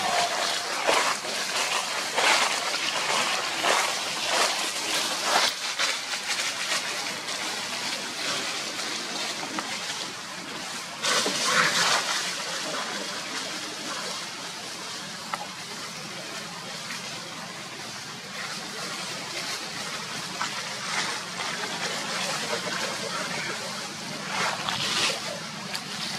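Dry fallen leaves rustling and crackling under monkeys running and scuffling across the leaf litter, with louder bursts about eleven seconds in and again near the end.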